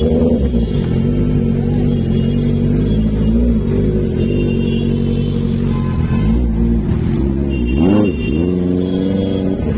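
Honda CBR650's inline-four engine running, with short throttle blips and one rev that rises and falls near the end.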